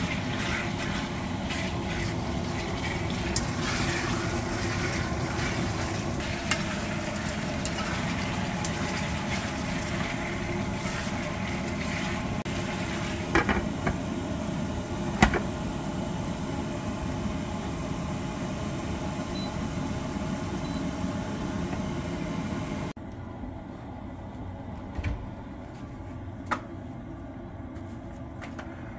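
Cubed meat sizzling steadily in a stainless frying pan as it is stirred with a spatula; a glass lid clinks onto the pan about halfway through. Near the end the sizzling cuts off abruptly to a quieter background with a couple of light knocks.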